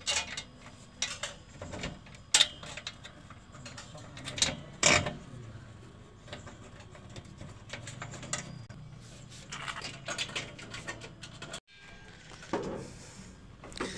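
Scattered metal clinks and knocks from a metal table frame being bolted together by hand, with a few sharper knocks among lighter tapping.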